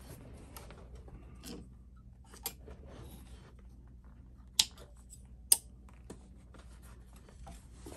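Small scissors snipping thread twice, two sharp snips about a second apart halfway through, amid faint clicks of handling at the sewing machine.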